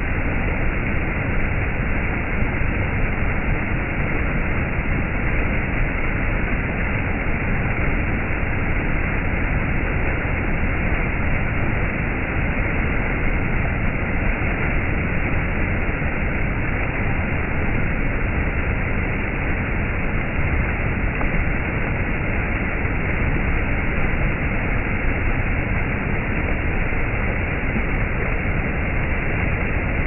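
Small stream of water running and splashing over low rock ledges in little cascades: a steady, unbroken rushing that sounds somewhat muffled.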